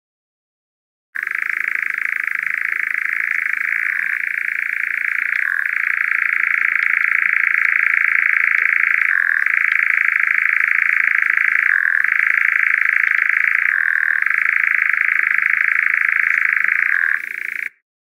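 European nightjar churring: one long, continuous dry trill, broken by short dips every few seconds.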